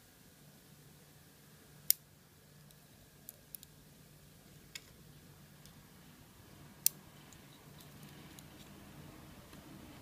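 Steel tweezers clicking against a brass padlock cylinder housing as they work inside it: sharp, sparse clicks, two loud ones about five seconds apart with a few fainter ticks between.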